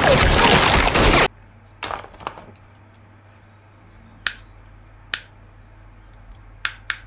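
A loud rushing noise cuts off abruptly about a second in. Then come scattered sharp plastic clicks and snaps as an action figure and its packaging are handled, about six in all, with a faint steady hum beneath.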